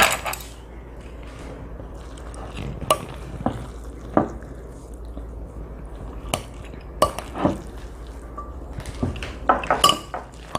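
Utensils clinking against a bowl, a dozen or so short separate clinks scattered through, with quieter stirring and handling in between.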